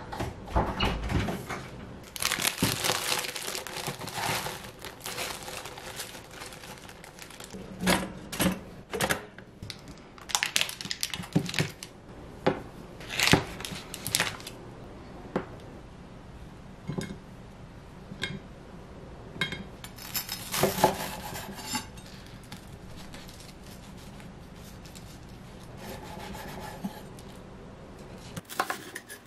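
Food prep on a wooden cutting board: a knife cutting into a block of butter in its foil wrapper and through slices of toast. Scattered knocks and clatter of the knife and utensils on the board, with a few longer stretches of crinkling and scraping.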